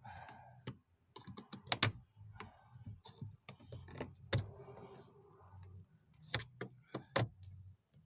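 Plastic trim or parts inside a car door being pried and forced out, giving irregular sharp clicks, knocks and snaps. The louder cracks come about two, four and a half and seven seconds in. The piece breaks as it comes free.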